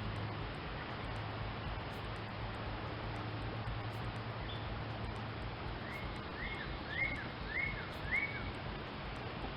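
Outdoor nature ambience: a steady hiss-like background with a low hum, and a bird giving about five short, repeated chirps in quick succession from about six seconds in.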